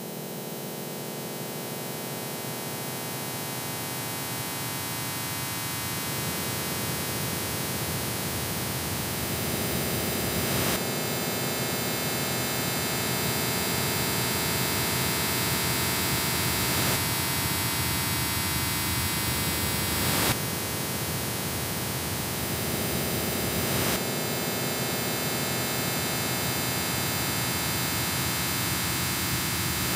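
Harsh industrial noise music: a dense wall of hiss and static layered with steady droning tones. It swells up out of a brief silence at the start and shifts abruptly several times.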